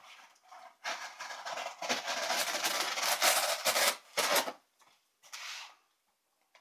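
Folding knife blade slicing through packing tape and cardboard on a box. It makes a long scratchy cutting stretch, then two shorter cuts near the end.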